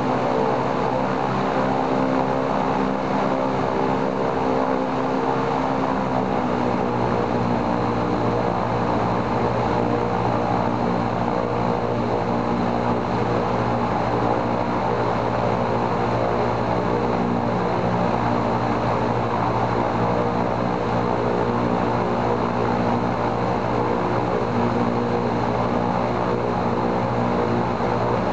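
The right-hand Shvetsov ASh-82T 14-cylinder radial engine of an Ilyushin Il-14 running steadily with its propeller turning, in a ground run-up to check the mixture regulator. The engine note drops slightly about six seconds in, then holds steady.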